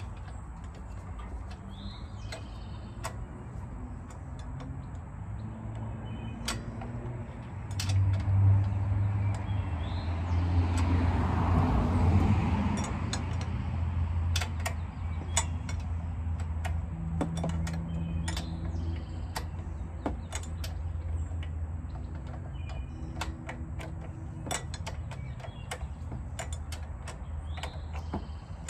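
Hand tools working on a mower starter's mounting: scattered sharp metallic clicks and ticks. Under them runs a low droning hum that grows louder from about a quarter of the way in until past the middle, with a brief rush of noise near the middle.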